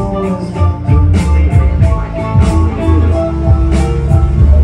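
Live band playing loud amplified music without vocals: a drum kit keeping a steady beat over a heavy bass line and held keyboard and guitar tones.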